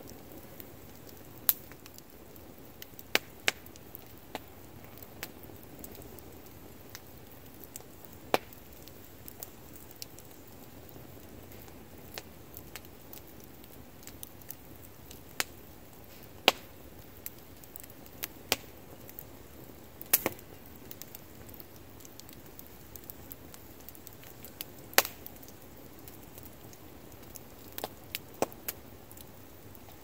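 Log bonfire burning: the wood crackles with sharp, irregular pops, several of them loud, over a steady faint hiss.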